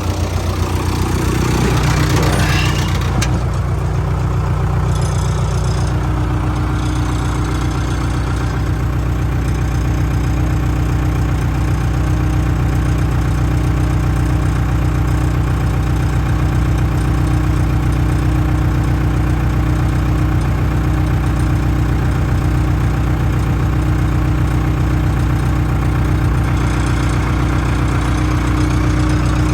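JCB backhoe loader's diesel engine running steadily at a low, even speed. About two seconds in, a brief rushing noise rises over the engine and stops.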